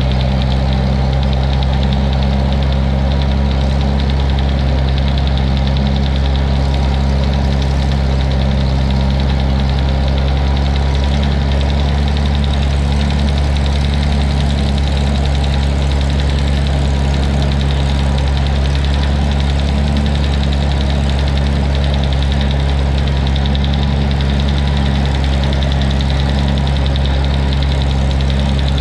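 1959 Farmall 560 tractor engine running steadily while the tractor pulls a John Deere 1209 haybine through hay, with no change in speed.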